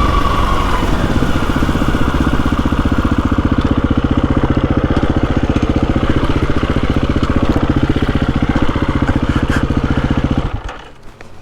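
KTM 350 EXC-F trail bike's single-cylinder four-stroke engine running steadily with an even beat. About ten and a half seconds in, it cuts off suddenly as it is switched off.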